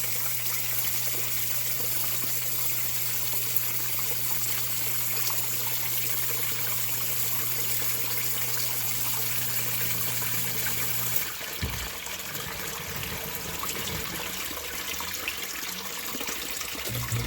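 Zoeller M57 sump pump motor humming steadily while water trickles and splashes in the pit. The hum stops about eleven seconds in, leaving only the trickling water. A click follows near the end and the hum starts again.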